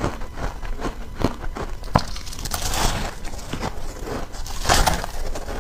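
Shaved ice being chewed close to the microphone: a dense run of soft, crackling crunches, with a louder crunch near the end.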